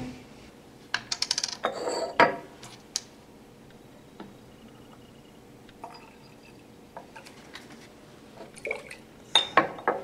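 Glass laboratory flasks clinking and knocking against each other and the bench, with buffer solution poured into a glass Erlenmeyer flask. There are sharp clinks about a second in and a cluster of them near the end as the flask is set down.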